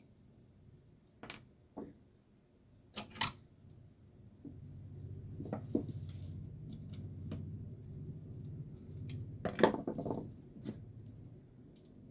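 Metal parts of a garage door opener's motor clinking and knocking as it is taken apart by hand, with a sharp knock about three seconds in and another near the end. A low steady hum runs underneath for several seconds in the middle.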